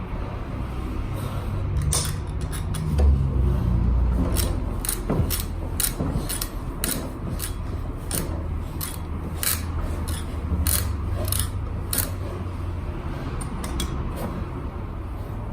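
Hand tools working on a Honda Today scooter's seized rear wheel: a string of sharp metallic clicks with scraping, about two a second through the middle, over a low steady rumble.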